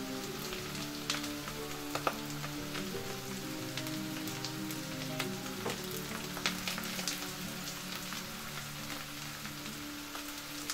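Onions and garlic sizzling in oil in a nonstick frying pan while a silicone spatula stirs them, with scattered light clicks and scrapes of the spatula against the pan. Soft background music with long held notes plays underneath.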